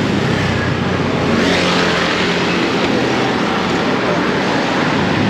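Street traffic with a motor vehicle's engine running close by, its noise swelling a little about two seconds in as it passes.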